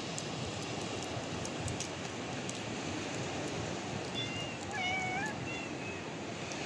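A cat meows once, short and faint, about two-thirds of the way in, over a steady rushing background noise.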